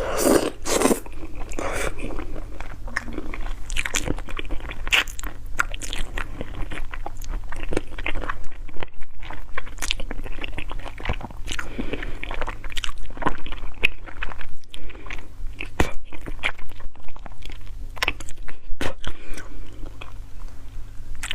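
A person eating close to the microphone, chewing with frequent irregular crunchy bites and mouth clicks. A faint steady low hum runs underneath.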